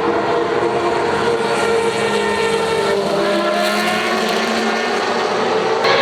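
Racing car engines running at high revs on a circuit, a stack of tones sliding slowly down in pitch and then rising again as another engine comes through. Near the end the sound abruptly turns louder and brighter.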